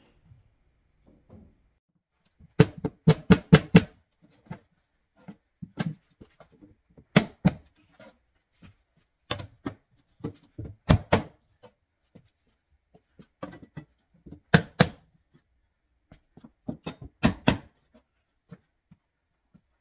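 Knocks of a mallet tapping floating engineered wood floor planks into place: a quick run of about five strikes about three seconds in, then scattered single and paired blows.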